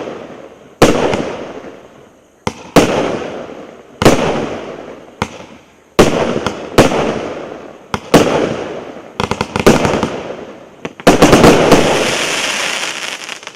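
A 96-shot, 1.1-inch fireworks cake (the "Tsar-Kolokol" battery) firing: a loud sharp bang every second or two, each trailing off over a second or so, some with a fainter pop shortly before. Near the end comes a dense flurry of bangs with a lasting crackle.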